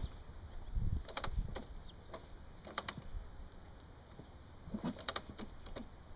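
Kickstarter of a 1983 Honda CR250's two-stroke single being kicked about three times, roughly two seconds apart, each stroke a short clatter with a low thump. The engine does not catch: a cold start attempt on a bike that has sat unstarted for a week and a half.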